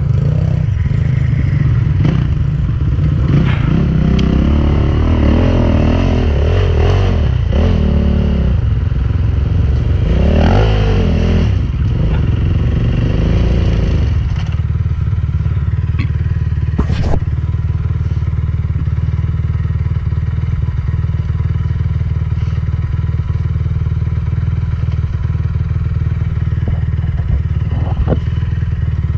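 Enduro dirt bike engine revving up and down through the first half, then settling into a steady low-rev running for the rest, with a sharp knock about 17 seconds in.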